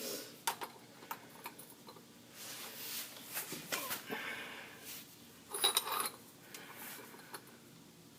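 Metal hand tools clinking and scraping: a socket wrench with a cheater bar being fitted and worked against a stuck oil pan drain bolt. Scattered sharp clicks with a few louder rattles midway and about two thirds of the way through.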